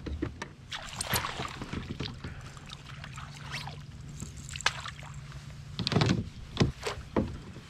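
A hooked largemouth bass splashing at the surface and being scooped into a landing net beside a kayak, with irregular knocks and clatter of gear against the hull. The loudest splashing comes about six seconds in as the fish is netted, over a steady low hum.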